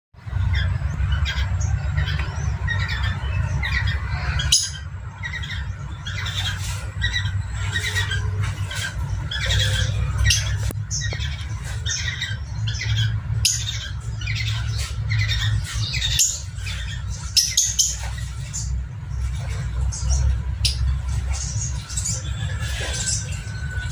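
Cockatiels squawking and chirping in a rapid series of short calls from a mating pair, over a steady low rumble.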